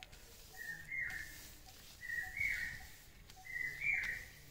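A bird calling a short whistled two-note phrase three times, about a second and a half apart, each a brief lower note followed by a slightly higher one.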